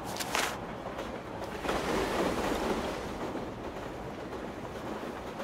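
Steady rushing rumble of a moving train carriage, with a short hiss about a quarter second in.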